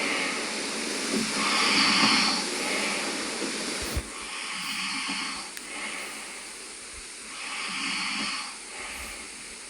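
A sleeping man snoring: slow, noisy breaths that swell and fade about every three seconds. One short click about four seconds in.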